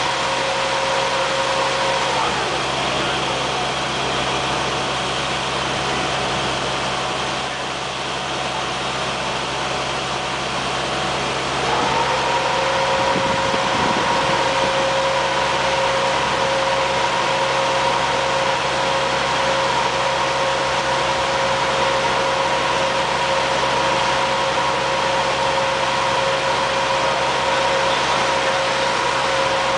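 A steady mechanical hum, like machinery running, with a high steady whine over it. The whine drops away about two seconds in and spins back up, rising to pitch, about twelve seconds in.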